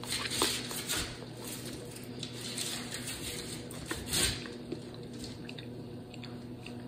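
Soft clicks and scrapes of a metal fork on a paper plate as a bite of meatloaf is cut and lifted, then quiet chewing, over a faint steady hum.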